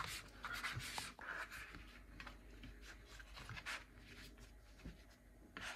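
Faint, intermittent soft rustling and brushing of a thin spring roll pastry wrapper as it is folded and rolled up by hand on a plastic chopping board.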